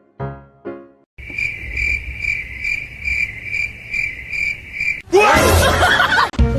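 A few piano notes, then a high, cricket-like chirping that pulses about two to three times a second for about four seconds. Near the end it is cut off by a loud, brief, noisy burst with swooping pitch.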